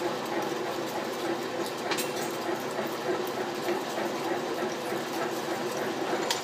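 Old floor drill press running with an oiled boring bar cutting through 3/4-inch steel under hand feed. A steady mechanical drone with a low hum and scattered ticks.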